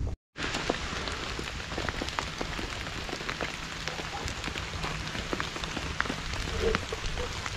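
Rain falling steadily, with many separate drops ticking.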